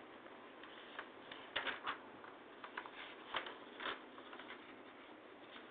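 Faint, irregular small clicks and ticks, a handful of them spread unevenly, over a steady low hiss.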